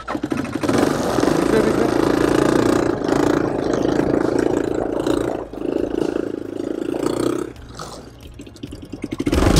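Quad bike (ATV) engine running under throttle as the bike pulls away, a steady drone that briefly dips twice and eases off about seven and a half seconds in.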